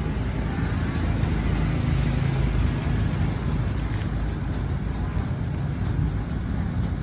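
Steady low rumble of motor-vehicle engines, even in level throughout.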